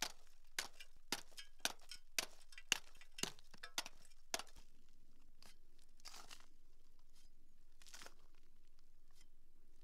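Hand hammer striking and chipping a soft, pale rock face in steady blows about twice a second, around nine strikes, stopping a little over four seconds in. After that there are only a couple of faint scrapes.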